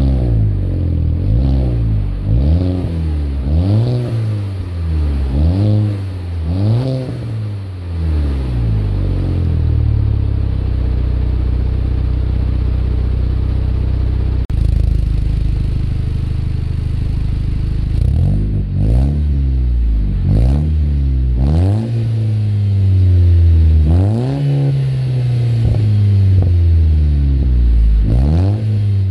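Audi A4 B7 exhaust at the tailpipes as the stationary engine is blipped from idle, about one rev a second, then settles to a steady idle. After a sudden cut about halfway through, it idles and is revved again, with quick blips and one longer, higher rev near the end.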